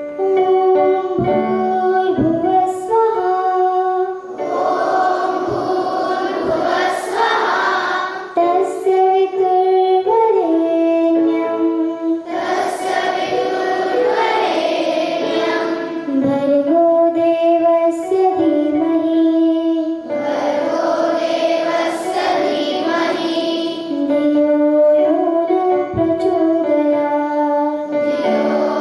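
Schoolgirls chanting a Sanskrit shloka together into a microphone: a melodic, sung recitation in phrases of about four seconds, each followed by a short pause for breath.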